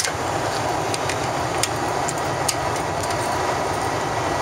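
Steady, even cabin noise inside a Boeing 777-200ER airliner, a low rumble with hiss, with a few faint clicks.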